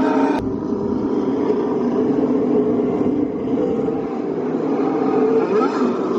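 Formula One cars' engines running as the cars drive along the main straight, a steady mechanical drone with a rising rev near the end.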